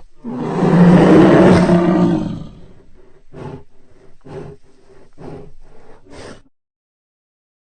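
Custom Godzillasaurus monster-roar sound effect: one loud roar lasting about two seconds, followed by a run of short, quieter grunts about two a second.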